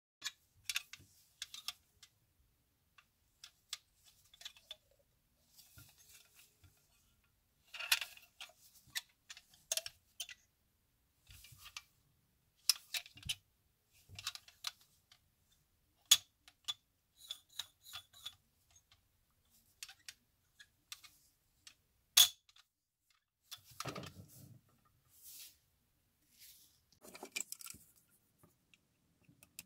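Handling noise from a metal Tonka toy cement truck being turned over in gloved hands: scattered light clicks, clinks and knocks of its steel body and wheels, with two sharper clinks in the second half and a duller rustle just after the second.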